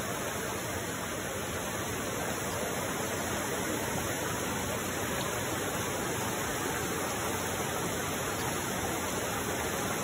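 Shallow rocky stream rushing steadily over stones, a continuous even hiss of running water.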